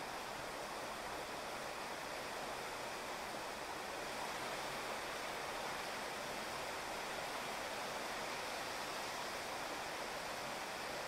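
Steady rain falling on a wet asphalt street and pavement: an even, unbroken hiss.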